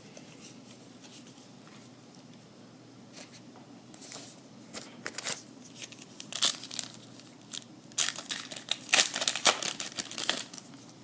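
A trading-card pack wrapper being torn open and crinkled by hand: low room tone at first, then scattered crackles from about four seconds in, with a dense run of loud crinkling and tearing in the last three seconds.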